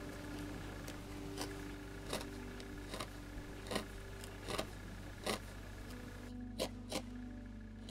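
Felting needle stabbing into the wool of a small needle-felted dog's face: about a dozen short, crisp pokes at an irregular pace, one to two a second.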